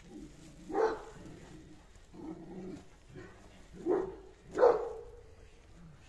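Dog barking: one loud bark about a second in, then two more close together around four to five seconds, with fainter barks between.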